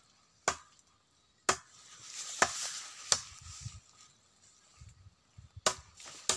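About six irregular sharp knocks, the loudest about two seconds in, with a rustling hiss between them in the middle of the stretch.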